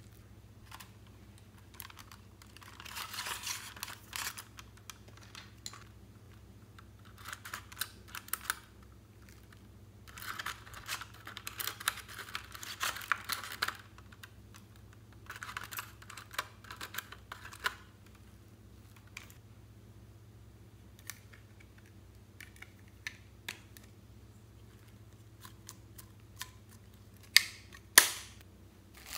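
A small metal spatula and an applicator stick scrape eyeshadow powder off a plastic toy makeup palette and onto glossy slime, in gritty scraping bursts lasting one to four seconds. Two sharp clicks near the end are the loudest sounds.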